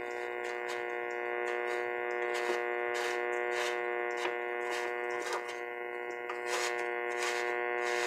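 A 1952 Westinghouse All-American Five tube radio's speaker giving a steady, buzzy hum between stations, with scattered crackles and ticks, as the tuning dial is turned.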